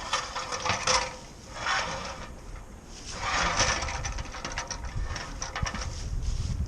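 Hand winch being cranked, its ratchet pawl clicking rapidly in bursts about a second long with short pauses between strokes.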